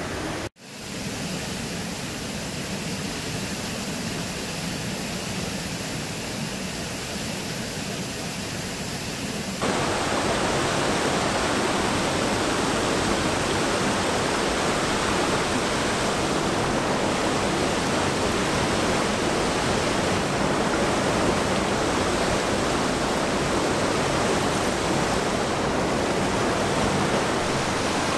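Steady rush of water from a small waterfall on a rocky creek. It cuts out for an instant near the start, then grows louder and fuller about ten seconds in.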